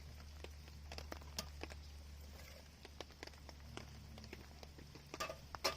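Raindrops tapping irregularly on a tarp, with a quick cluster of louder taps near the end and a low steady hum underneath.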